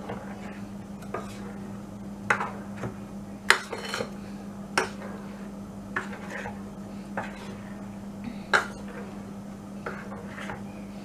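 A utensil knocking and scraping against a mixing bowl while stirring thin, fermented rice batter to break up lumps: irregular clinks about once or twice a second. A steady low hum runs underneath.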